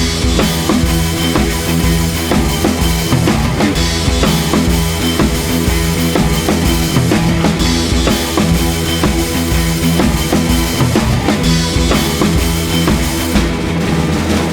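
Rock music with a driving drum-kit beat, bass and guitar.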